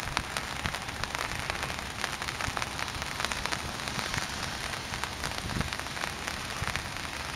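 Rain falling: a steady hiss with many small, sharp, irregular drop ticks.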